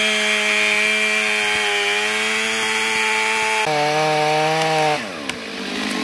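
Stihl two-stroke chainsaw running at full throttle, its chain cutting through the trunk of a dead ash tree. The pitch steps lower about three and a half seconds in, then the revs fall away near the end.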